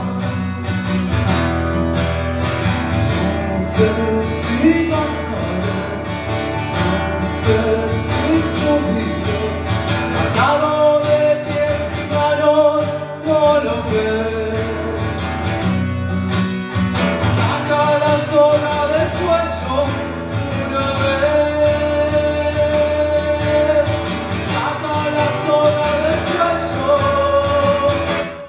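A man singing a song with his own acoustic guitar strumming along, performed live.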